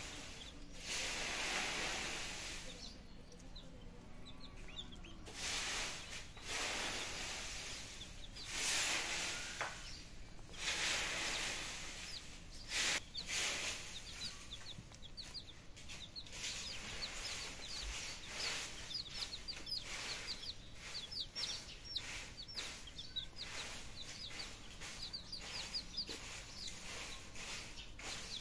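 Baby chicks and ducklings peeping: a steady run of short, high, falling cheeps, several a second, busiest in the second half. Bouts of rustling noise come and go in the first half.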